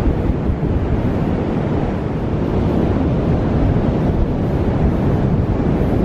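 Strong wind buffeting the microphone in a steady low rumble, with ocean surf breaking underneath.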